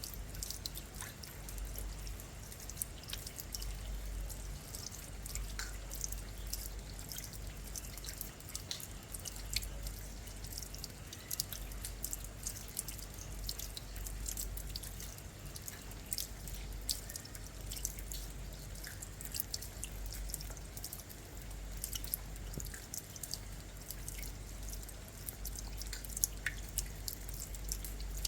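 Rain falling, with many sharp, close drips landing one after another over a steady wash of rain, and a low rumble underneath.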